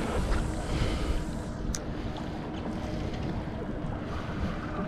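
Wind on the microphone and water against the hull of a small boat at sea, with a faint steady hum under it. One sharp click about two seconds in.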